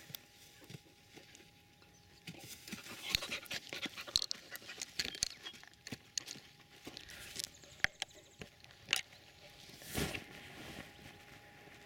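Wolf puppy moving through dry grass and weeds: irregular rustling and crackling of stalks, with a longer, louder rustle about ten seconds in.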